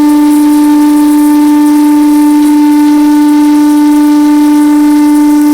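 CNC lathe running with a loud, steady whine held at one pitch over a faint hiss.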